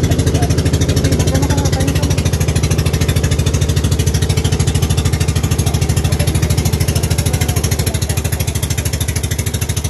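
Outrigger boat's inboard engine running steadily under way, with a fast, even pulse.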